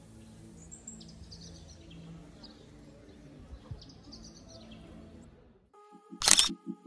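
Town-square ambience with small birds chirping in short high calls over a faint low steady hum. Near the end the ambience cuts out, followed by a single sudden loud burst and then a low pulsing throb.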